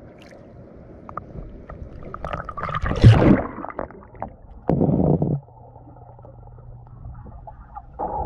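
Water splashing and gurgling around a GoPro as it is dipped below the surface of a swimming pool about three seconds in. Muffled underwater rumbling and sloshing follow, with loud spells around five seconds and again near the end.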